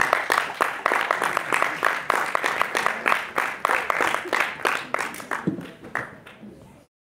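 Audience applauding: dense clapping that thins out and fades over the last couple of seconds, then cuts off suddenly.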